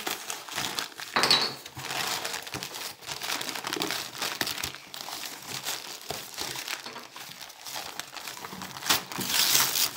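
Thin pink wrapping paper crinkling and tearing as a child's hands pull it off a boxed present, a continuous rustle full of small crackles that gets louder near the end.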